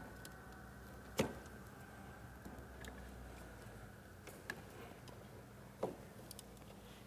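A few sharp plastic clicks and small knocks, the loudest about a second in and near six seconds, from a screwdriver pressing open the quickconnect spring-clamp terminals of a Hager FI/LS breaker and wires being pushed into them. Flexible leads need the clamp opened first.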